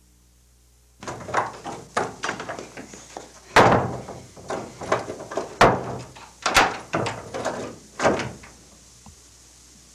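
Loud, irregular banging on a door, a dozen or more blows starting about a second in and stopping near the end.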